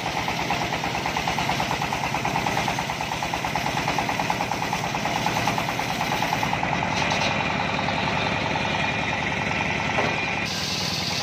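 Homemade engine-driven circular sawmill running, its large blade ripping through mahogany over the engine's steady, rapid chugging.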